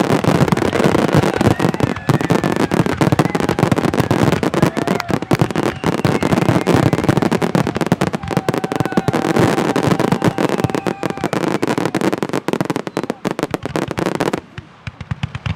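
Fireworks display barrage: many shells bursting at once in a dense, continuous crackling and banging. The barrage stops suddenly near the end, leaving a few separate bangs.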